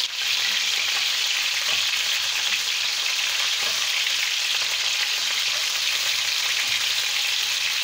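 Lamb kidneys frying on maximum heat in oil in a cast-iron pan: a steady, loud sizzle, with the kidneys releasing their juice into the hot oil.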